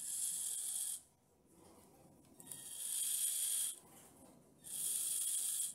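The small brushed motors-on-axle of a 1/24-scale rock crawler spin its wheels with no load, giving three short bursts of high whirring under throttle: one about a second long at the start, one that swells in the middle, and one near the end. The front and rear motors, each driven by its own 10A brushed ESC, start together.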